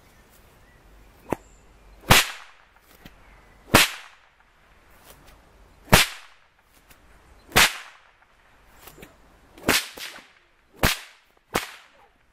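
A whip cracking seven times at uneven intervals, each a sharp crack, with a lighter crack about a second in; the cracker strikes a sheet of thick drawing paper clamped in a stand, cutting it.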